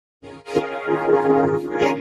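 Short music intro with steady pitched notes and a few sharp beats, starting about a quarter of a second in.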